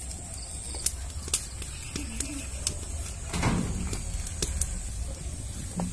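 Outdoor background with a low steady rumble, a few sharp clicks and a brief rustle about three and a half seconds in, and a soft bird call about two seconds in.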